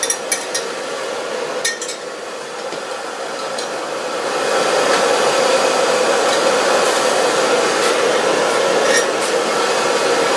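A steady rushing, blower-like noise that grows louder about four seconds in. Light metallic clinks of steel gun parts being handled come near the start and again near the end.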